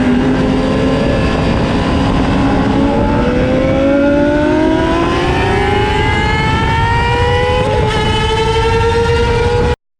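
High-revving motorcycle engine pulling hard, its pitch climbing steadily for several seconds as it accelerates. It cuts off abruptly near the end.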